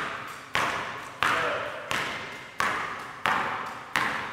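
Basketball dribbled on a hardwood gym floor, a steady run of sharp bounces about three every two seconds, each ringing and echoing in the hall.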